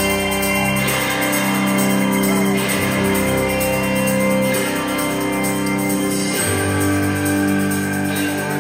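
Live rock band playing loudly, with electric guitars, drums and keyboards, in the opening bars of a song.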